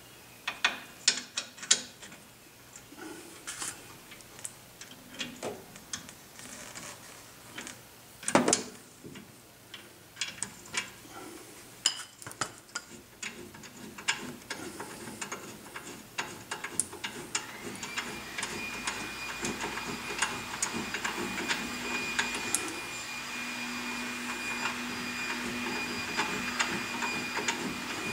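Ratchet wrench clicking in short irregular runs, with metal clinks, as the mounting bolts of a C3 Corvette front brake caliper are backed out. About two-thirds of the way through, a steady hum with a high tone sets in and gets a little louder.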